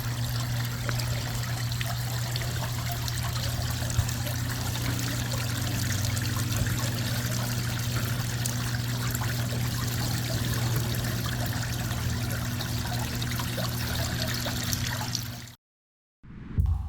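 Water from a slate-stacked urn fountain trickling and splashing steadily into the basin below, over a steady low hum. It cuts off suddenly near the end.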